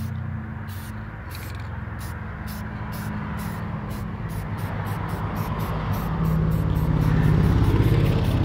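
Engine of a passing road vehicle, growing steadily louder and loudest near the end.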